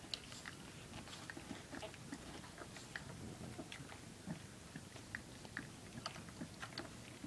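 Three-week-old puppies nursing from their mother dog, making faint, irregular wet smacking and sucking clicks.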